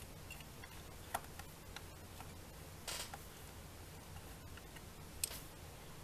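Small screwdriver working a screw on a laptop's plastic underside: faint scattered clicks and scrapes, with a few sharper ticks about one, three and five seconds in.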